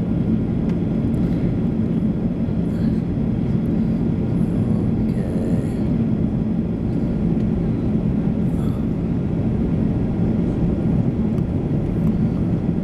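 Airliner cabin noise: the steady, loud drone of the jet engines and rushing air, with a constant low hum underneath.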